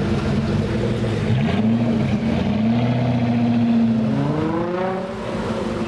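Sports car engine running, then revving up about a second and a half in, holding at higher revs and climbing again near the end.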